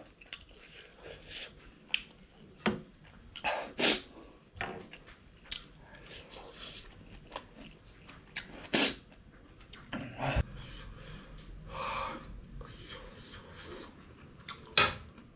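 A person eating spicy instant noodles with a fork: scattered short slurps, chewing and sharp sniffs, with occasional small clinks of the fork on the plate.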